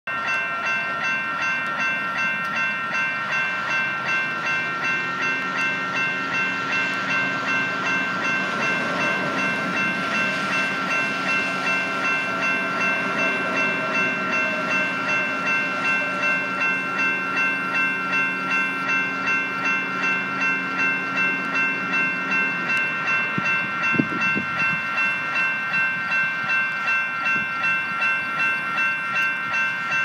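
Railroad crossing warning bell ringing steadily, about two strokes a second, while the gates are down and the lights flash. A lower steady drone sounds underneath for most of the time and stops abruptly about three-quarters of the way through, and there is a single knock shortly after.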